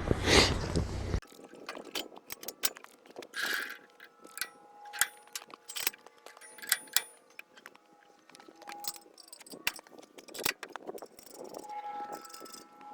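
Metal clinks, taps and knocks from bolts being pulled and the resaw table bed being adjusted, some leaving short metallic rings. A loud rushing noise cuts off abruptly about a second in.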